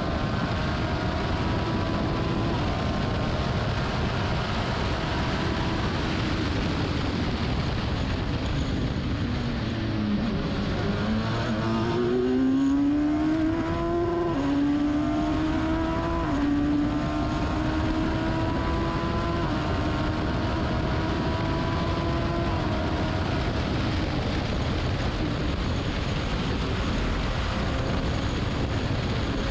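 Race car engine running hard under steady wind and road noise. About ten seconds in the engine note falls as the car slows. It then climbs again with two quick drops in pitch as it shifts up through the gears, and settles into a steady high note.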